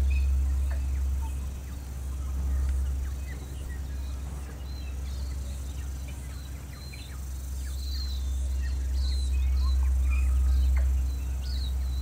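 Wind buffeting the microphone as a low rumble that swells and eases, with short bird chirps scattered through it.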